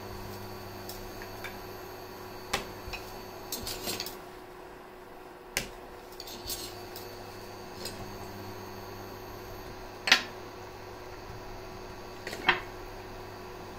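Kitchen utensils and dishes clinking and knocking now and then, with two louder knocks in the second half, over a steady low hum.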